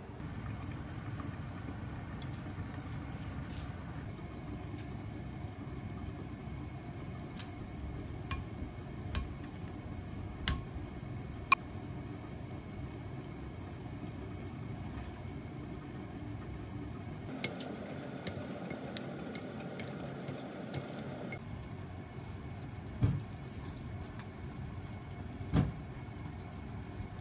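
Wooden spoon clicking against a white ceramic bowl while tossing potato chunks, then a few soft thuds near the end as the potatoes are spooned onto plates, over a steady low kitchen hum.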